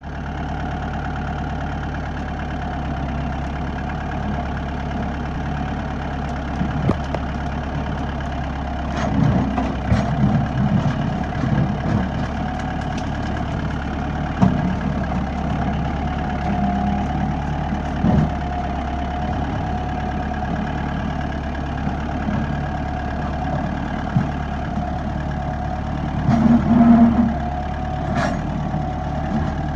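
Tractor engine running steadily, with a constant low hum and a steady high whine, as the front-end loader pushes through brush. Irregular cracks and knocks of branches breaking come in a cluster about a third of the way in, then a few more, and a louder cluster near the end.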